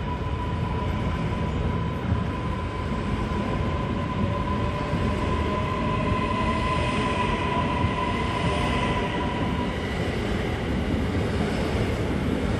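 SBB intercity train's passenger coaches rolling past along the platform: a steady wheel-on-rail rumble, with a thin high whine that fades out about ten seconds in.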